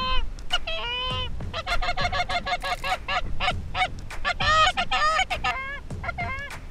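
Goose calling on a hand-held goose call: quick, overlapping honks and clucks, several a second, loudest about four and a half seconds in.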